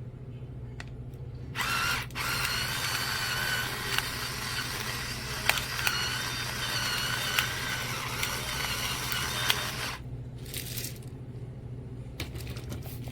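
Battery-powered electric pepper grinder running, its small motor whining as it grinds peppercorns for about eight seconds, with a brief stutter near the start. A short second burst follows, then a few light clicks.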